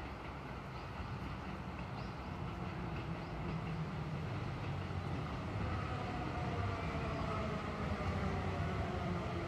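Keio 5000 series electric train running, a steady low rumble with a faint motor whine of several gliding tones coming in about halfway through and growing slightly louder.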